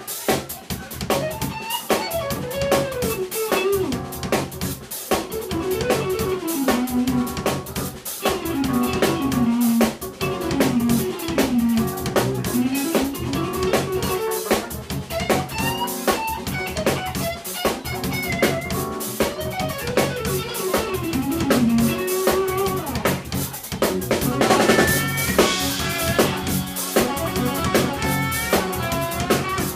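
Live jazz band playing a tune: a drum kit keeps a busy beat under a winding melody from guitar, keyboard and saxophone, with a cymbal wash a little before the end.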